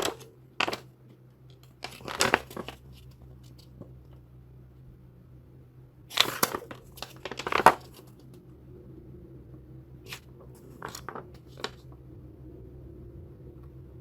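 Paper and packaging being handled: short bursts of rustling and crinkling every few seconds, the loudest around the middle.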